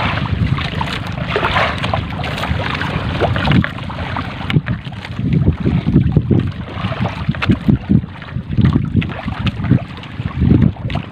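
A wet fishing net being hauled over the boat's side rail, with water splashing and dripping off it. Uneven splashes and thumps come more thickly in the second half, and wind buffets the microphone.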